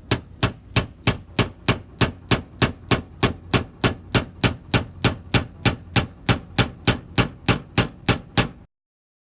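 Blending hammer with a small mirror-polished steel tip tapping a car body panel in a steady run of about three sharp taps a second, which cut off abruptly near the end. The taps knock down a glue-pulled dent that was left slightly high.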